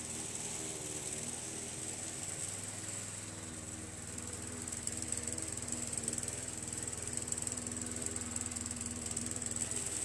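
Walk-behind lawn mower running steadily while being pushed across grass, growing a little louder and rougher about halfway through.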